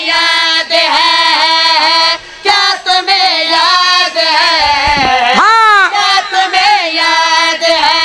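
A young reciter's high voice singing a qasida through a microphone and sound system, in long held notes with wavering ornaments, with a wide sweep up and down in pitch about five and a half seconds in.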